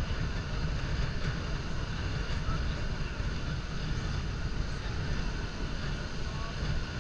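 Steady rushing roar of the Horseshoe Falls, with wind rumbling on the microphone.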